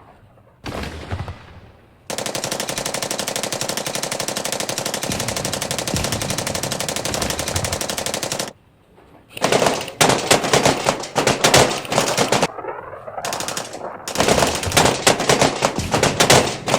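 Airsoft guns firing on full auto: one unbroken rapid burst of about six seconds starting two seconds in, then after a short pause several shorter, choppier bursts.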